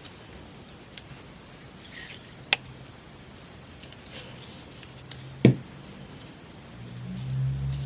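Paper being trimmed with scissors: small snips and rustles of paper, with a sharp click about two and a half seconds in and a louder knock with a thud about five and a half seconds in. A low hum builds near the end.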